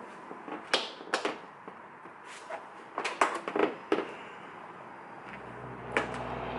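Scattered clicks and knocks of a car bumper quick-release fastener being handled and pushed to lock back into place. A steady low hum starts about five seconds in.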